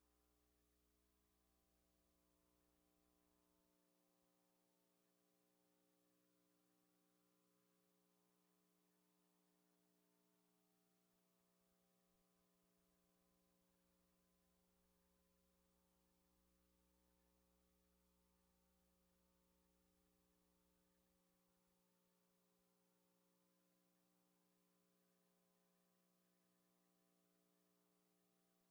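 Near silence with only a faint, steady electrical hum.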